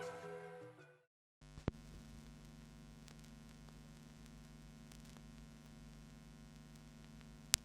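Music fades out about a second in, then comes a moment of dead silence. After that a steady mains hum from the amplifier sounds, with a click soon after it starts and a sharp click just before the end.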